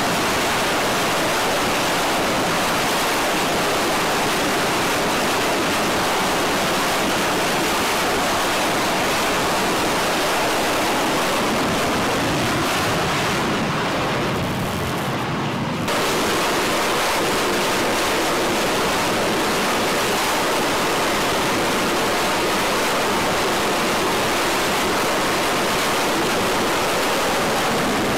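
F/A-18 Hornet jet engines running at high power for catapult launches: a loud, steady rushing noise that thins briefly and comes back abruptly about sixteen seconds in.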